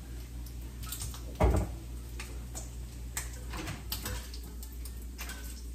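Kitchen tongs clicking and knocking against a skillet as bacon is lifted out, with one dull thump about a second and a half in, over a steady low hum.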